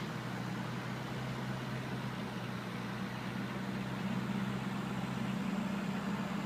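A steady low mechanical hum, a motor or engine running, under a constant hiss.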